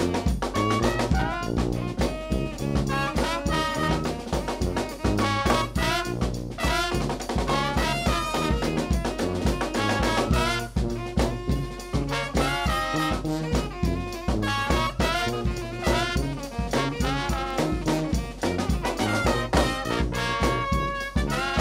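A New Orleans brass band playing a steady, driving groove. Trumpet, trombone and saxophones play over a sousaphone bass line, with bass drum and snare drum beating out the rhythm.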